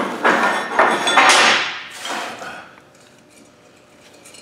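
Metal welding rods clattering and clinking as they are handled at a steel table. The rattling dies away after about two and a half seconds.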